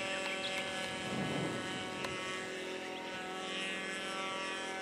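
Radio-controlled model airplane's motor and propeller running at a steady speed overhead: an even, unchanging drone with many overtones.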